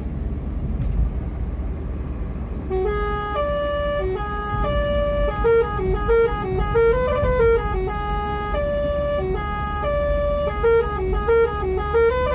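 Basuri telolet horn playing a tune through its melody module: a run of loud, stepped horn notes going up and down in pitch, starting about three seconds in, over a low rumble.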